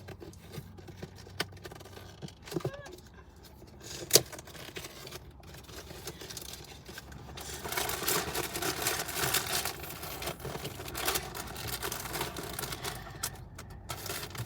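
A toy's packaging being handled and opened by hand: a few sharp clicks and taps, the loudest about four seconds in, then several seconds of crinkling and tearing of wrapping.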